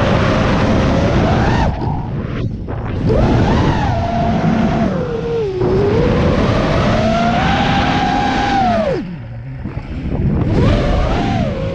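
FPV drone's electric motors whining, the pitch sliding up and down as the throttle changes. Twice, about two seconds in and again about nine seconds in, the whine falls away briefly as the throttle is chopped, then climbs back.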